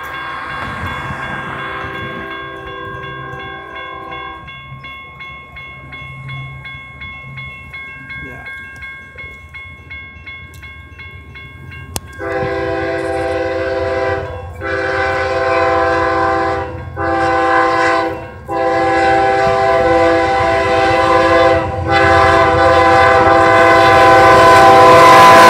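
Railroad crossing signal bells ring steadily, with a train horn faint at first. About twelve seconds in, the horn of an approaching Amtrak Genesis passenger locomotive sounds loud and close in long blasts and one short one, the grade-crossing warning pattern, getting louder as the train nears.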